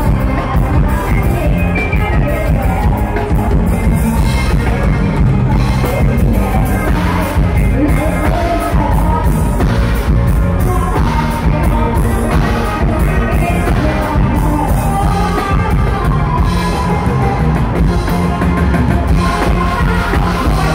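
Live Thai luk thung–mor lam band music played loud through a stage sound system: a steady heavy bass beat with a singing voice over it.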